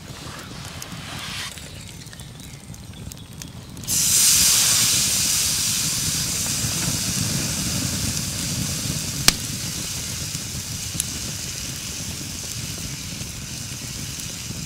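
Wood campfire burning with crackles; about four seconds in an oil-marinated steak goes onto the hot wire grill grate over the flames and starts sizzling loudly, the hiss easing off slowly. A single sharp pop from the fire a few seconds later.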